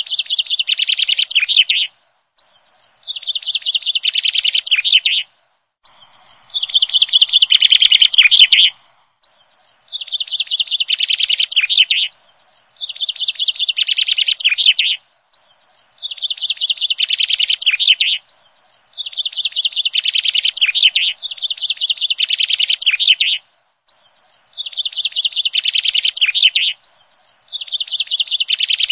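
Bird chirping in rapid, high trills, repeated in about ten phrases of two to three seconds each, with a short silence between phrases.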